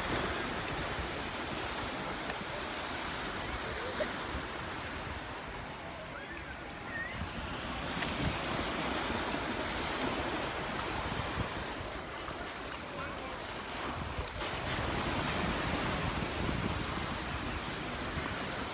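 Surf washing ashore on a beach, a steady rush that swells and eases every few seconds, with some wind on the microphone.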